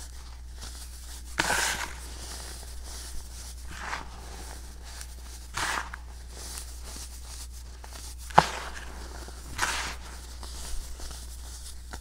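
Clumps of dried, dyed baking soda crushed and crumbled between fingers onto loose powder in a plastic tub: about six soft, crunchy crumbles a second or two apart, with one sharp snap about two-thirds in, over a faint steady low hum.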